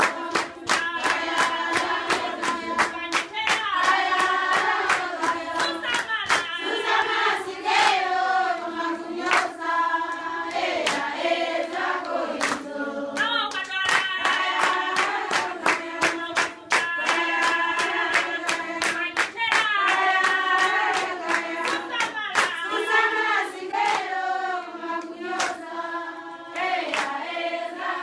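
A group of women singing together, unaccompanied, with steady hand clapping about two claps a second.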